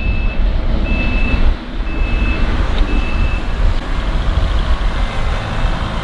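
A reversing backup alarm on snow-clearing machinery beeping about once a second, four beeps in all, which stop about three and a half seconds in. Under it runs a loud, steady low rumble of the working machine.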